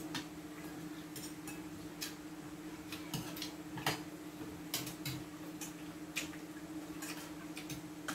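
Spoons clinking and scraping against ceramic and metal bowls while eating: scattered light clicks at irregular intervals over a steady low hum.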